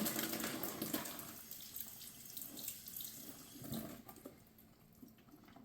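Raw chicken juices pouring and splashing into a kitchen sink, loudest at first and trailing off within a couple of seconds, followed by a few faint knocks.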